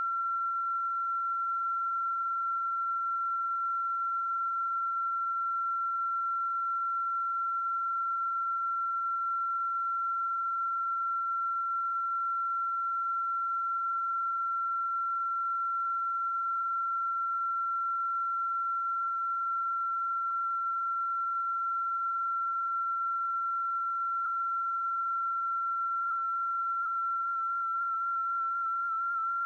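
A steady, high-pitched whistling tone that holds one pitch, with a slight warble near the end. It is the weird 'eew' sound on the Mt Merapi recording, whose origin the uploader does not know.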